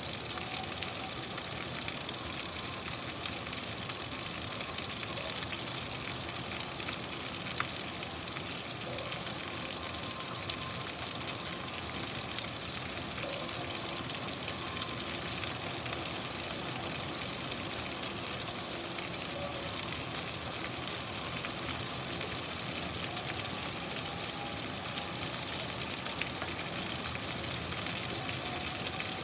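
Steady rain hiss, with now and then a single louder drop tick.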